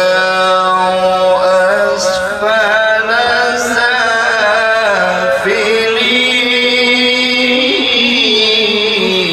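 A man reciting the Quran in the melodic tajwid style: long held notes with a wavering, ornamented run in the middle.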